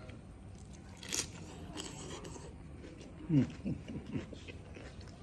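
Quiet eating noises from someone eating, with a sharp click just over a second in. Around three and a half seconds in come a few short falling vocal sounds from the eater, the first the loudest.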